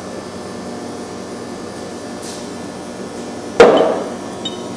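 One sharp metallic clank with a short ringing tail about three and a half seconds in, as the engine's metal main bearing caps are handled and knocked against each other or the bench. A steady low hum of room ventilation runs underneath.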